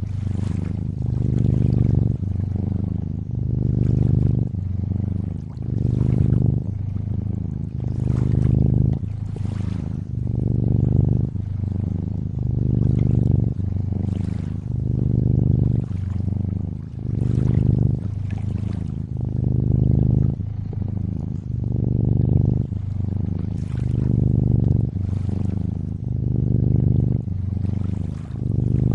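Cat purring steadily, each purr swelling and fading in a cycle about every two seconds, over a continuous trickle of lakeside water.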